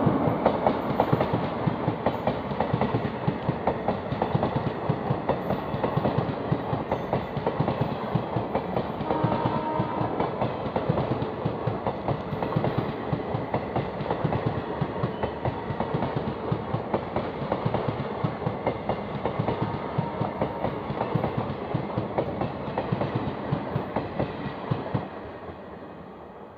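Passenger coaches of an express train rolling past at speed, the wheels clattering quickly and continuously over the rail joints. The sound slowly fades as the train draws away, dropping off more sharply near the end.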